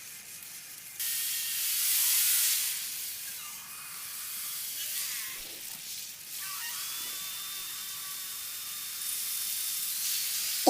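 A hiss with almost no low end, rising about a second in and easing after three seconds, with a faint steady high whistle from about six seconds and a thin rising whine near the end.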